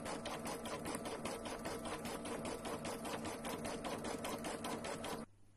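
Home embroidery machine stitching out a design at a rapid, steady rhythm of needle strokes, then stopping abruptly near the end as the design finishes sewing out.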